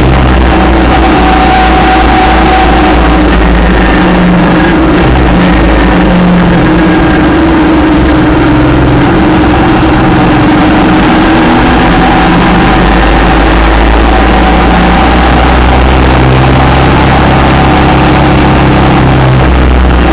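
Suzuki V-Strom's V-twin engine running at road speed, its note shifting up and down a few times, heard from the moving motorcycle with heavy wind noise on the microphone.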